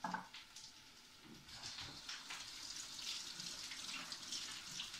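Kitchen tap running into a sink as steamed cannellini beans are rinsed under it. The water comes on about a second and a half in, after a short knock, and then runs steadily.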